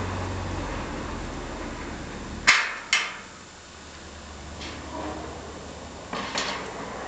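Metal clanks from the Lartigue monorail's pivoting steel trestle points section as it is swung round on its circular rail to change the points: two sharp clanks half a second apart about halfway in, a faint rolling sound as it turns, and another clank near the end.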